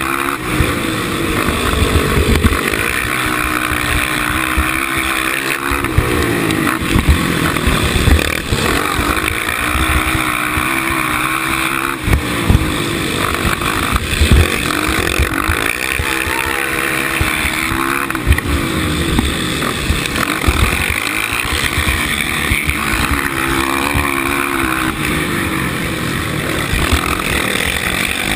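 Suzuki LTR 450 racing quad's single-cylinder four-stroke engine revving hard, its pitch rising and falling every few seconds as the throttle is opened on the straights and eased for the turns.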